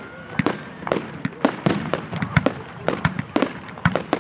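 Aerial fireworks going off in quick, irregular succession: sharp bangs and pops several times a second, with a faint whistle near the start.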